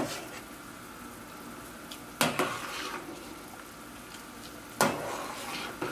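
Wire-mesh skimmer clinking twice against a stainless steel pot while scooping solids out of the soup, over a low steady hiss.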